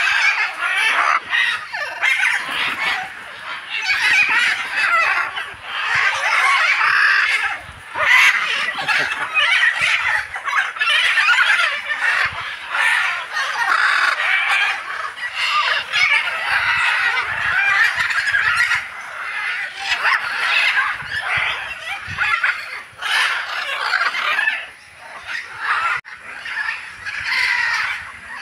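A flock of macaws squawking and screeching, a loud, nearly unbroken chorus of harsh calls.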